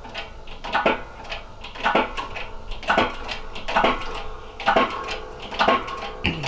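Metal-on-metal strikes about once a second, each ringing briefly, as a three-jaw gear puller is worked to pull a gear off a transmission countershaft.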